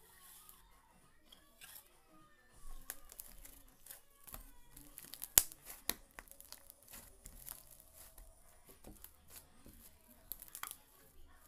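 Slime being worked by hand, with crackling, crinkly clicks and pops; the sharpest click comes about five and a half seconds in.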